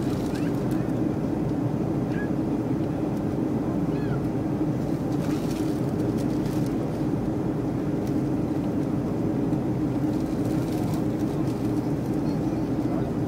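Steady drone of an airliner's cabin in flight, heard from a window seat over the wing: jet engines and airflow running at an even level.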